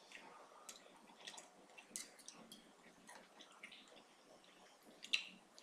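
Faint, close-up eating sounds: wet chewing and small mouth clicks, with a knife and fork cutting steak on a plate. A sharper click about five seconds in.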